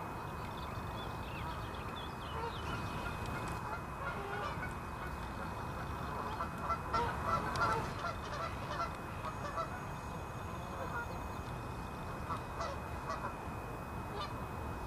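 Geese honking repeatedly, many short calls overlapping, thickest around seven to eight seconds in.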